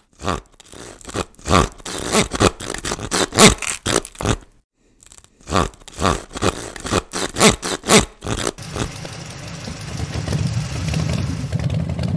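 Sharp chopping strikes of a machete blade hacking into a tree trunk, about three a second, broken by a brief silence about halfway. About two-thirds of the way in the strikes give way to a steady noise with a low hum that slowly grows louder.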